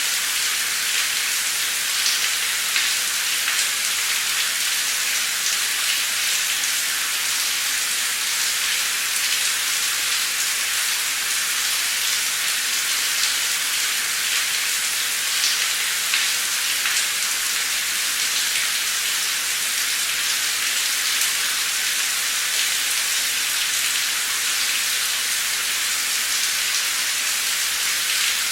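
Heavy, torrential rain pouring steadily, a dense even hiss with many individual drop impacts.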